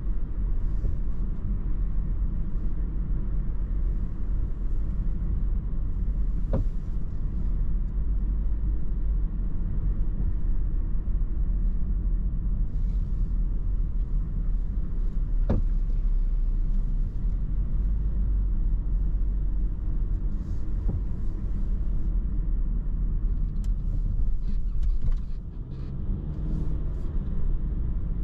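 Car interior road and engine noise picked up by a camera on the dashboard: a steady low rumble, with a few single sharp clicks. The rumble dips briefly near the end.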